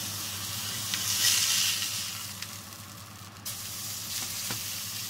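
Minced-meat patty sizzling in a hot ridged grill pan while a slotted spatula is worked under it and the patty is turned over. The sizzle swells about a second in, and a few light spatula clicks sound against the pan.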